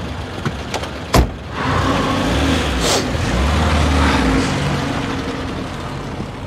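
A car door slams shut about a second in. A Lada station wagon's engine then rumbles for a few seconds and fades.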